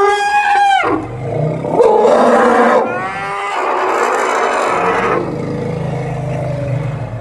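African elephants trumpeting at close range: a high, pitched trumpet blast in the first second, then louder, rougher trumpeting around two seconds in and again from three to five seconds in. A low steady rumble follows in the last couple of seconds.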